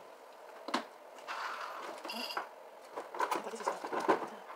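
Close-up eating sounds: chewing and mouth smacks, with scattered sharp clicks and a quick run of loud clicks and smacks in the last second and a half.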